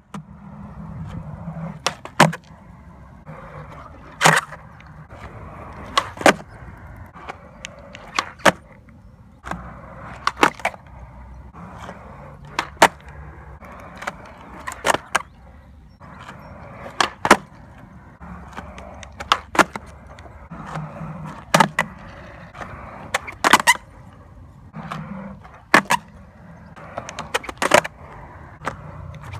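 Skateboard wheels rolling on smooth concrete, broken about every two seconds by sharp clacks, often in quick pairs, as the tail is popped and the board lands during flatground tricks.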